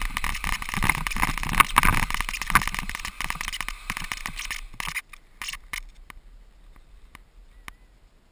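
Bicycle tyres crunching and scraping over crusted snow on lake ice, full of crackles and rattles. The noise drops sharply about five seconds in, leaving only scattered faint crackles.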